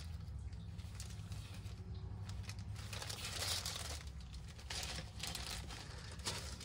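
Clear plastic parts bag from a model kit crinkling as it is handled and lifted away, with irregular crackles that are loudest about halfway through.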